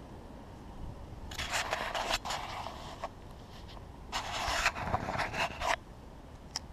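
Rustling and scraping close to the microphone in two bursts of about a second and a half each, the first starting about a second in and the second about four seconds in, followed by a short tick near the end.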